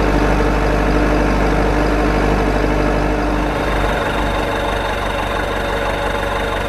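Steady engine-like running hum, its tone shifting about three and a half seconds in.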